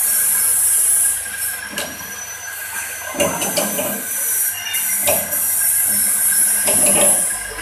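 Coconut shell peeling machine running with a steady high whine and hiss. Its spinning toothed cutter grinds and scrapes at a husked coconut held against it, in uneven bursts every second or two as the shell is worked off.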